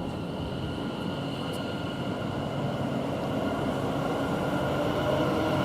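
A pair of Class 730 electric multiple units pulling away. The traction equipment gives a steady whine of several high tones over a rumble, growing slowly louder.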